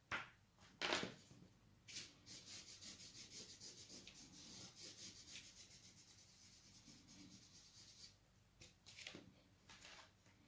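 Quick shading strokes scratching across heavy Arches paper, about five a second for several seconds, with a few louder single strokes near the start and near the end.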